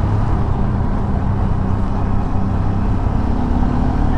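Motor vehicle driving along a road, its engine giving a steady low hum under road and wind noise.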